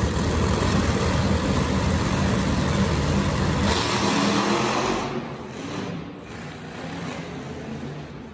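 Monster truck engines running loud and revving, then dropping off sharply about five seconds in to a lower running level.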